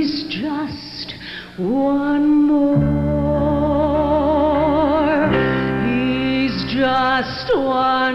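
A woman singing in a trained, operatic voice, holding long notes with wide vibrato. Sustained instrumental chords come in underneath about three seconds in.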